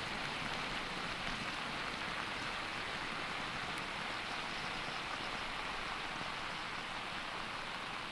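Steady fizzing hiss from a self-heating meal's water-activated heating element as it reacts with the added water and heats the food pouch.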